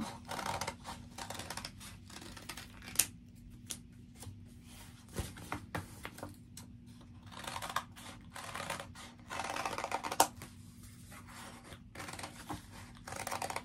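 Scissors cutting through a stack of several sheets of construction paper in short, irregular snips, with the stiff sheets rustling as they are turned and shuffled between cuts; a few sharp clicks.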